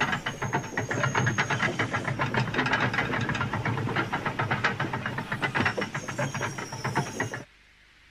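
Steam locomotive sound effect: rapid chuffing with hissing steam, cutting off suddenly near the end.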